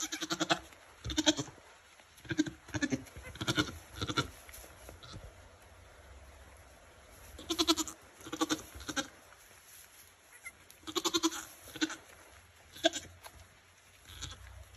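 Nigerian Dwarf goats bleating: short calls repeated every half second to a second, with a pause of a couple of seconds midway.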